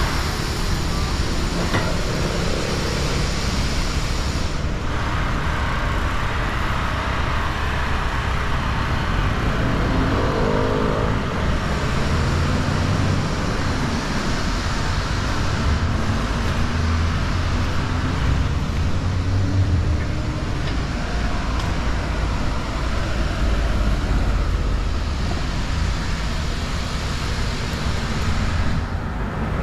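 Street traffic going by close at hand: a steady wash of car engines and tyre noise, with one vehicle's engine note shifting in pitch about ten seconds in.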